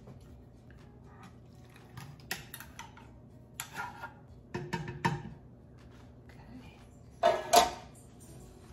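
Metal baking pans and kitchen utensils being handled and set down: scattered knocks and clinks, with a louder, briefly ringing clatter near the end.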